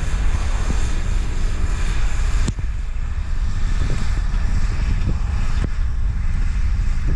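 Wind buffeting the microphone in a heavy low rumble, over the steady distant running of a White 100 tractor pulling a cultimulcher. The upper hiss drops off suddenly about two and a half seconds in.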